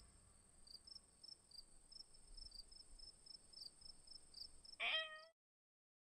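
Faint crickets chirping, about three chirps a second, over a steady high insect whine. Near the end a domestic cat gives one short meow, and then the sound cuts off.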